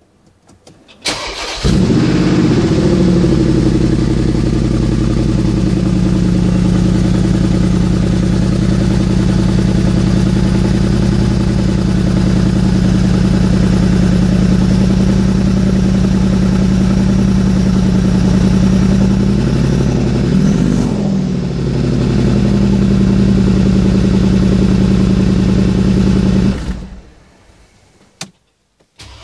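Cold start of a 2015 Mercedes-Benz G 63 AMG's 5.5-litre biturbo V8: the starter cranks briefly about a second in, the engine catches and settles into a loud, steady idle through its side-exit exhaust. About two-thirds of the way through it gives one short rev that rises and falls back to idle, and near the end the sound dies away.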